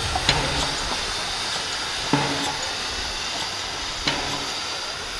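Baldwin-built 2-6-2 narrow-gauge steam locomotive running slowly light engine, with a steady hiss of steam. A short knock comes about every two seconds.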